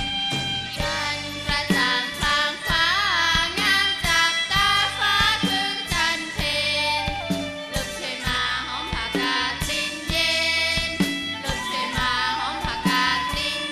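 Live band playing a Thai 'songs for life' folk song, a woman singing the melody over violins, drums and guitar.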